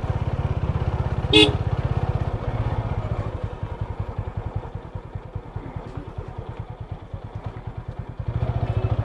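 Motorcycle engine running as the bike is ridden slowly, its firing strokes making an even rapid beat; it gets quieter in the middle and picks up again near the end. A brief beep about a second and a half in.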